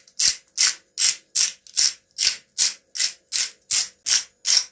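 Hand-held spice grinder being twisted, grinding spice in a steady rhythm of short gritty strokes, about two and a half a second.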